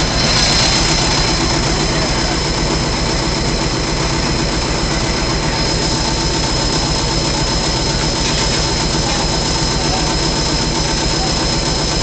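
Dexter Triple Load front-loading washer running loudly: a steady high-pitched whine over a low rumble.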